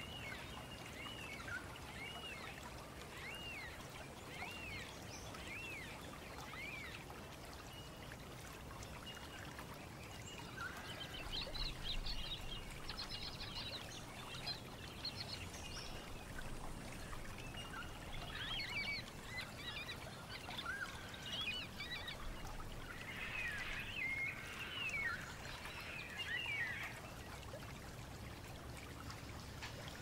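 Several wild birds calling. A string of short arched chirps comes about once a second for the first seven seconds, then a busier mix of chirps and trills sets in, all over a steady hiss like running water.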